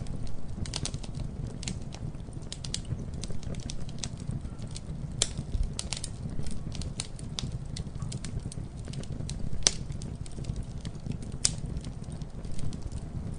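Wood fire crackling: irregular sharp pops and snaps, a few louder than the rest, over a steady low rumble of the flames.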